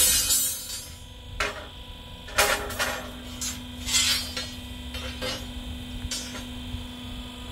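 A string of knocks and clattering scrapes, about seven in all, the loudest at the very start, over a steady electrical hum.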